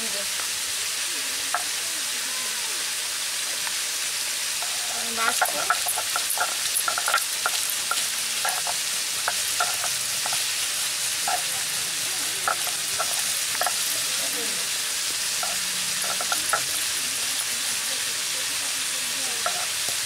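Stone roller grinding green chillies, ginger and cumin seeds on a flat sil grinding stone: rough scraping with many sharp crackles and clicks as the chillies and seeds are crushed, starting about five seconds in and thinning out near the end, over a steady hiss.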